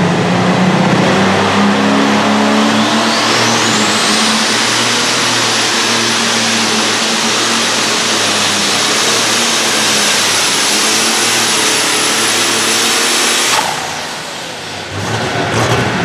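Light modified pulling tractor's engine running at full throttle under load as it drags the pulling sled. A high whine rises during the first few seconds and then holds steady. The engine cuts off suddenly near the end as the pull ends.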